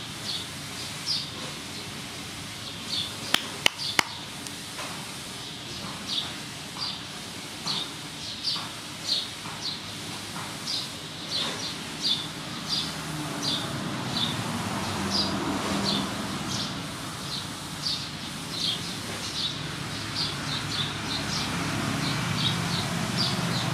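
A small bird chirping over and over, short high chirps about one or two a second. Two sharp clicks come close together about three and a half seconds in.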